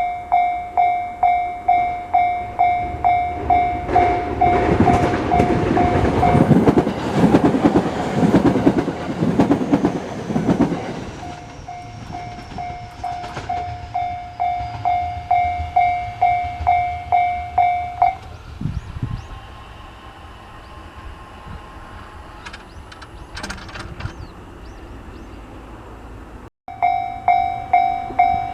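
Japanese level-crossing warning bell ringing in a steady repeated ding, about one and a half strikes a second. A train runs over the crossing from about four seconds in, its wheels clattering over the rail joints, and passes by about eleven seconds in. The bell stops about eighteen seconds in and starts again near the end.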